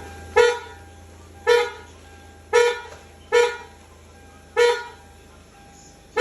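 2007 Hyundai Santa Fe's horn sounded in five short taps about a second apart, each one a steady tone. The horn is working again after its steering-wheel horn control was replaced.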